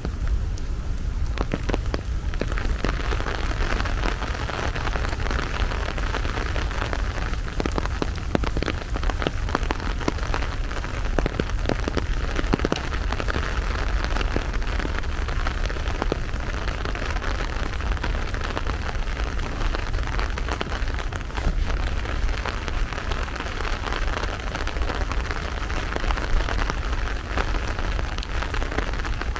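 Steady rain falling, a constant hiss with the fine patter of many drops, over a steady low rumble.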